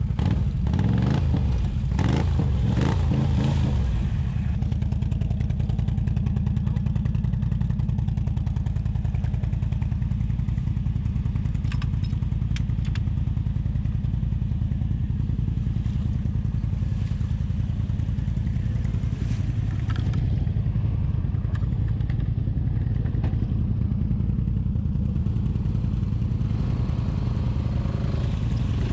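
ATV engine running steadily at low revs, louder and more uneven in the first few seconds.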